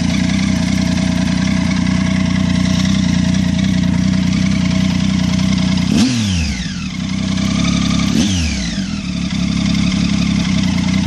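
Triumph Tiger 800 inline-three engine running through an aftermarket Arrow exhaust, a steady loud note. Twice, about six and eight seconds in, the pitch drops sharply and then the steady note comes back.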